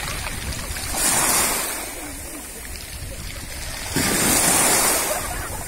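Small sea waves washing in shallow water, with surges about a second in and again, more suddenly, near four seconds.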